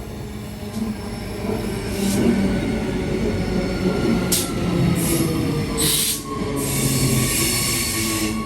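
Electric suburban passenger train running along the platform, with a motor whine gliding down in pitch and wheel noise. Short high hissing bursts come about four, five and six seconds in.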